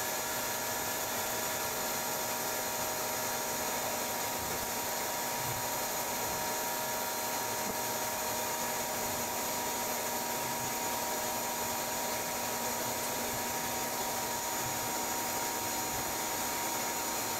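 Bee vacuum running steadily, its motor giving a constant whine with several fixed tones over a hiss as the hose sucks the surface bees off the comb.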